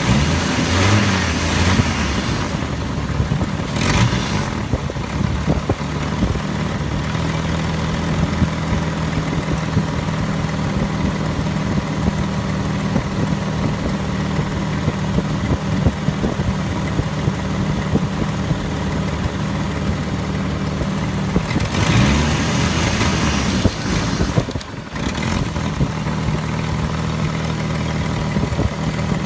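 1998 Jeep Grand Cherokee engine idling steadily, its note briefly wavering near the start and again about 22 seconds in. The owner suspects a failing fuel pump, with fuel pressure dropping off until the engine stalls.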